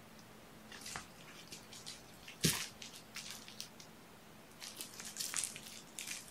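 Kittens playing with small toys on a carpeted floor: scattered light clicks and rustles, with one louder thump about two and a half seconds in.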